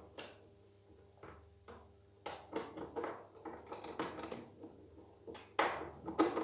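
Hand torque screwdriver driving a screw into a plastic cover: a run of small sharp clicks, about three or four a second, starting about two seconds in and getting louder near the end.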